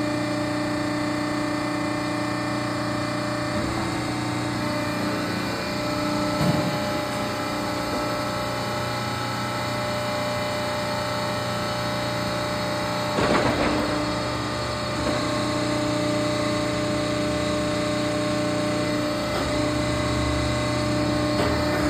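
Steady machine hum with a constant whine from a 4-roll hydraulic plate roll's hydraulic power unit running. A short knock comes about six seconds in and a louder metallic clatter about thirteen seconds in.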